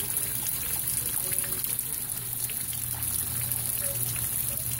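Steady rain, with water trickling and pouring as it runs off, and faint scattered drop ticks over a low steady hum.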